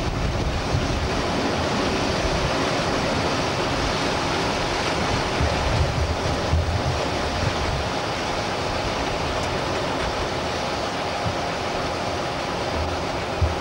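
Diesel-electric multiple unit running slowly over station-yard track, a steady rumble of engine and wheels with wind buffeting the microphone at the open window, and a few low thumps.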